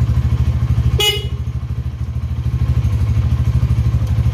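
Honda Tiger Revolution (GL200) single-cylinder four-stroke engine idling on choke during warm-up, an even rapid pulse of about a dozen beats a second. About a second in, a brief sharp high chirp cuts across, and the idle is slightly quieter for a moment after it.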